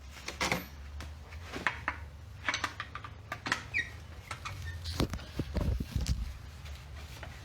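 Tools and small brake parts being handled on a car brake job: scattered light clicks and clinks, with a few heavier low thumps about five to six seconds in.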